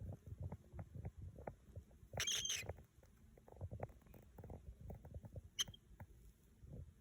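Baby cockatiel giving one raspy, hissing begging call about two seconds in and a short sharp chirp later on, among soft low rustling and tapping.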